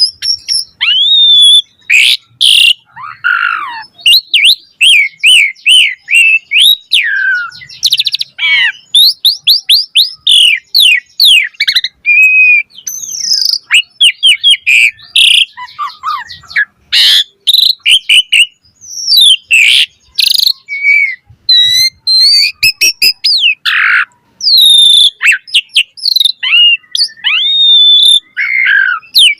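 Asian pied starling (jalak suren) singing a long, varied song: a rapid, nearly unbroken string of whistles, rising and falling glides, chatters and trills.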